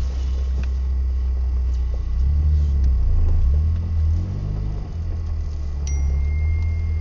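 Low, steady rumble of a car driving, its engine and tyres heard inside the cabin. About six seconds in, a thin high tone starts and holds.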